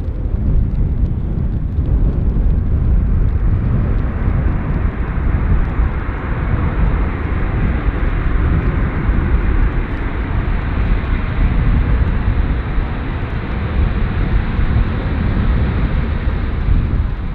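Jet airliner engines passing at an airport: a steady low rumble, with a hiss that swells from about four seconds in and eases near the end.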